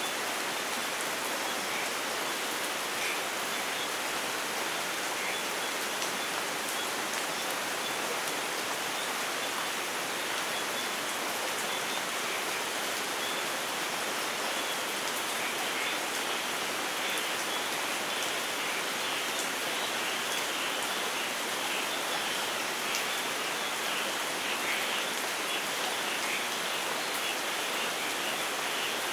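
Steady rainfall in a rainforest, an even hiss without letting up, with scattered small high-pitched ticks that come more often in the second half.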